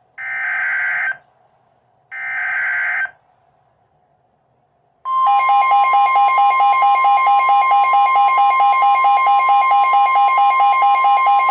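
Emergency Alert System SAME header: two bursts of warbling data tones, each about a second long and a second apart. After a short pause, about five seconds in, the steady two-tone EAS attention signal starts and holds; it announces the tornado warning that follows.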